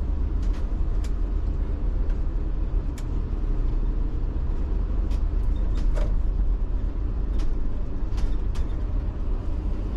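Iveco Urbanway 12 city bus running, a steady low engine rumble with scattered short clicks and rattles.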